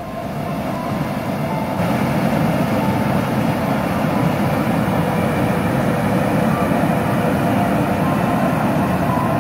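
Water pouring over a low concrete dam spillway into the river below: a steady rushing of falling water that grows louder over the first two seconds, then holds level.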